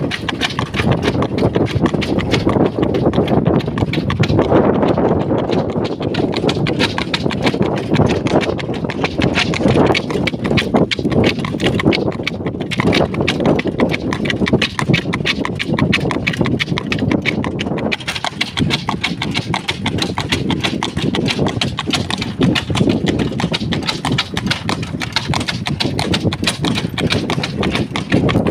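Draft horse's hooves clip-clopping steadily on an asphalt road as it pulls a cart.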